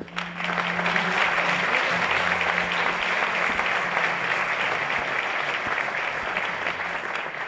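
Audience applauding, swelling sharply at the start and tailing off near the end. Under it, a low held note of background music fades out after about two seconds.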